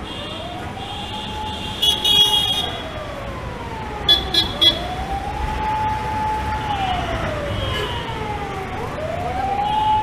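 A siren wailing over traffic noise: its pitch rises, holds for a couple of seconds, then slowly falls, the cycle repeating about every four seconds.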